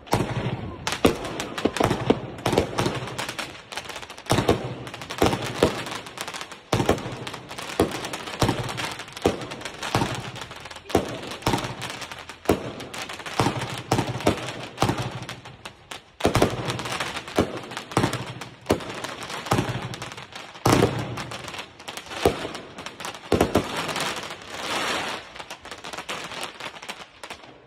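Funke 20-shot, 30 mm firework cake firing: shot after shot in quick succession, the lift thumps and the sharp bursts of the chrysanthemum-rain stars overlapping, stopping just before the end.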